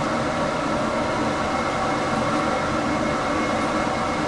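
Olive oil sizzling in a frying pan as chicken is browned, a steady hiss.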